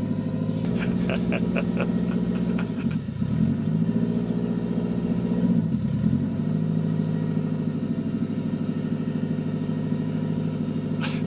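Toyota 4AGE four-cylinder engine in a 1970 Lotus Europa running at a steady idle through open headers with no muffler. Its note sags briefly twice as the car is put in gear.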